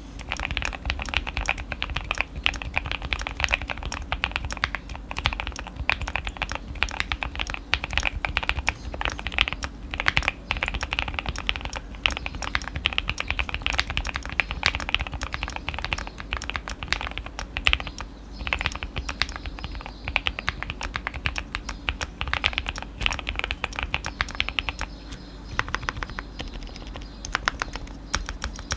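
Fast continuous typing on a Qwertykeys QK80 custom mechanical keyboard with lubed and filmed Alpaca V2 linear switches and double-shot PBT Cherry-profile keycaps, its case fully foamed: a dense stream of irregular key clacks.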